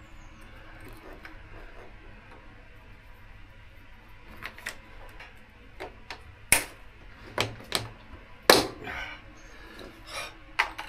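Irregular sharp clicks and knocks of hands and tools working trim clips and body panels off a motorcycle. They come after a few quiet seconds, about ten in all, the loudest about two-thirds of the way through.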